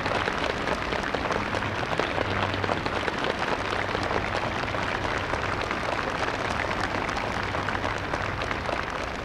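Crowd applauding: many hand claps blending into a dense, steady patter that eases slightly near the end.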